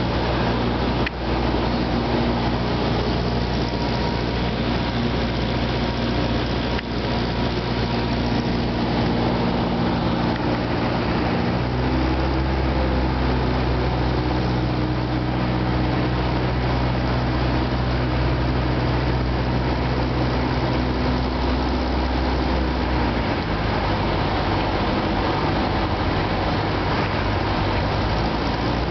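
Cessna 172's piston engine and propeller droning steadily in the cabin, with airflow hiss, on the landing approach. The engine note shifts about twelve seconds in and drops around twenty-three seconds in.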